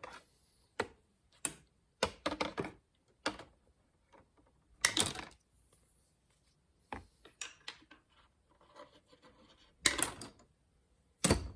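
Irregular sharp clicks and snaps of insulation being stripped off short pieces of copper wire, with quiet gaps between strokes.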